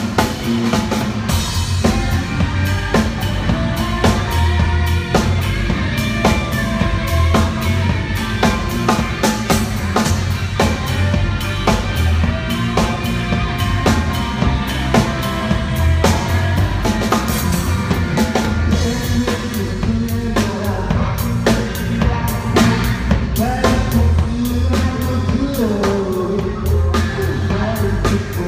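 Live rock band playing: a drum kit keeps a steady beat of kick and snare under electric guitars.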